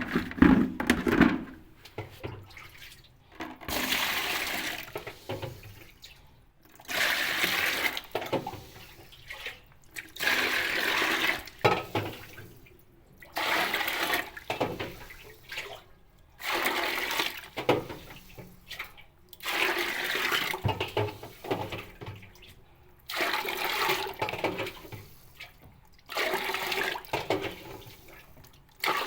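Water sloshing and splashing inside a washing machine in repeated surges, each a second or two long, about every three seconds, the rhythm of the machine agitating a load of water.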